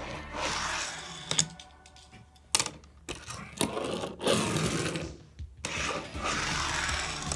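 A fingerboard on bearing CNC wheels rolling, a steady rushing sound, broken by a few sharp clacks of the board popping and landing; the loudest clack comes about two and a half seconds in.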